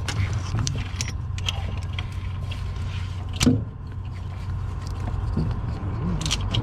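Scattered metallic clinks and knocks of tools and parts being handled at a truck engine, with one louder knock about three and a half seconds in, over a steady low hum.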